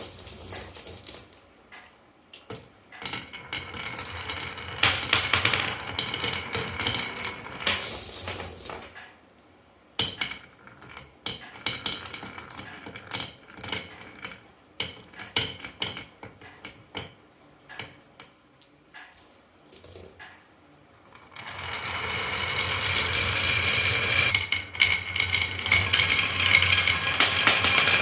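Marbles rolling and clacking down a wooden marble run: irregular clicks and rattles with short pauses. About three-quarters of the way in, a denser, steadier clatter begins, with music coming in.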